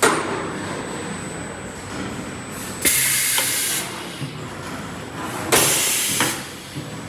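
Automatic paper baking-cup forming machine cycling: two sharp bursts of air hiss, each under a second and about two and a half seconds apart, over the machine's steady running noise, with a few light mechanical clicks. The machine opens with a sudden loud noise that fades over about a second.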